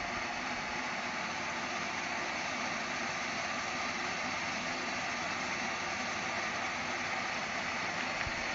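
Bladeless tower fan with a DC motor running, a steady airy hiss of blown air.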